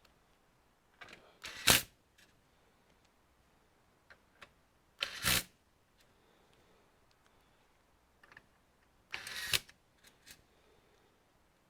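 Short bursts of clicking and rattling from small plastic and metal computer parts being handled during disassembly: three louder bursts, about a second in, about five seconds in and about nine seconds in, with a few faint ticks between.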